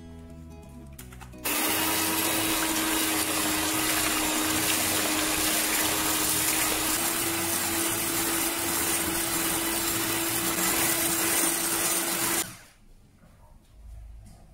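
Electric hand mixer whipping egg whites at high speed in a glass bowl: a steady motor whine with the whoosh of the beaters, switching on about a second and a half in and cutting off suddenly near the end. The hum steps slightly higher about halfway through as the whites stiffen toward the hooked-peak stage.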